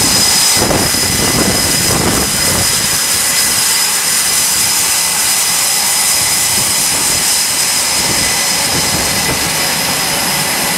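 Twin F414 turbofan engines of an F/A-18 Super Hornet running on a carrier flight deck: a loud, steady roar with a high-pitched whine over it.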